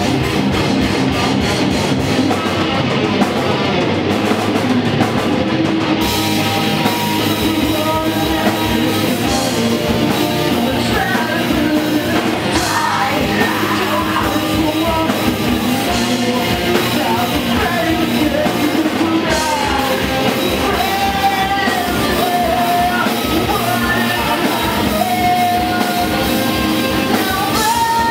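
A rock band performing live, a vocalist singing into a microphone over drums and instruments; the music grows fuller about six seconds in.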